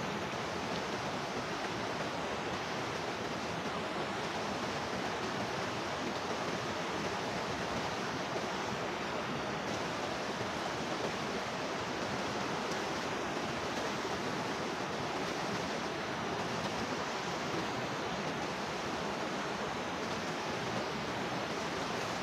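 Steady rushing water: a constant, even roar of flowing or falling water with no breaks.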